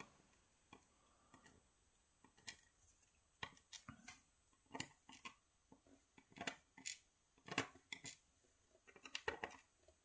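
Faint, scattered light clicks and taps of metal tweezers nudging small lock pins into line in a plastic tray.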